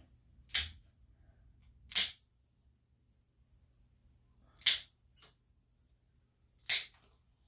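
Plier-style dog nail clippers cutting a Lhasa Apso's toenails: four sharp snaps, a second or two apart, with a fainter click just after the third.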